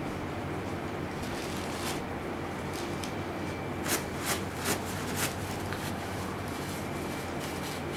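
Steady low machine hum, with four quick rustles of tissue and plastic being handled about four to five seconds in, as blood is wiped from the cupping marks.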